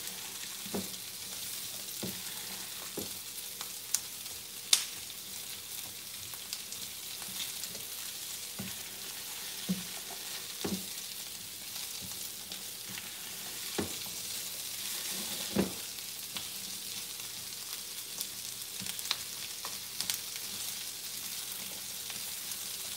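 Chopped onions sizzling as they fry in olive oil in a pan, with a steady hiss. A spatula stirring them scrapes and taps the pan every second or two.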